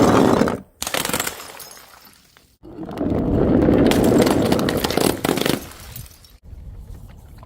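Glass bottles smashing and shards crunching and clattering, in short clips that cut off abruptly, with the loudest crash running from about 2.7 to 5.5 seconds in.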